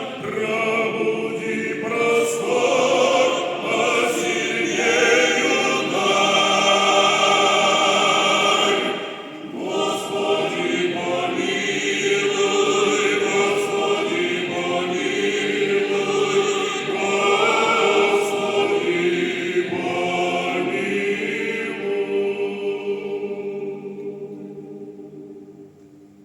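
Male choir singing a sacred song in full harmony. The final chord is held and fades away near the end.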